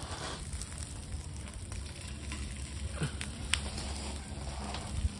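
Meat grilling over the fire of a washing-machine-drum barbecue: a faint steady sizzle with a few crackles and pops, over a low steady rumble.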